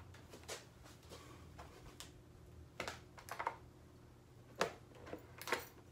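Faint, irregular plastic clicks and rattles from a motorcycle helmet's visor being worked by hand: the Icon Airflite's flip-down visor and face shield moved up and down.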